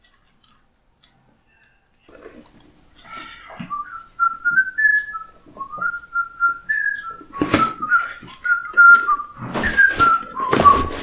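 A person whistling a cheerful tune, starting a few seconds in, while handling a cardboard shipping box. Several sharp knocks and rustles from the box come through the second half.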